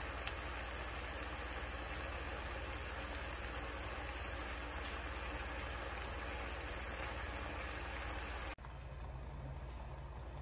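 Gochujang-marinated pork belly sizzling steadily in a frying pan over low heat. About eight and a half seconds in it cuts to a quieter simmer under a glass lid.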